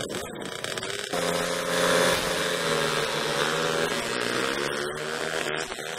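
Small motocross dirt-bike engines running, with a steady engine note that starts about a second in, dips slightly and rises a little again.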